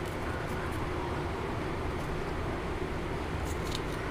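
Steady low background rumble, with a few faint short scrapes of a small knife cutting seeds out of a red pepper on a wooden cutting board, mostly near the end.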